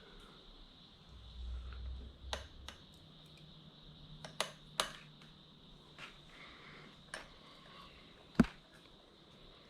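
Scattered light clicks and knocks of small hard parts and tools being handled and set down on a workbench, about seven in all, with one sharper knock near the end, over a faint steady high-pitched whine.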